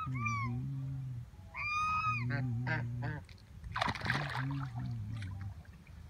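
White domestic geese honking repeatedly on a pond, calls one after another with short gaps. About four seconds in there is a brief noisy burst of wing-flapping and splashing in the water.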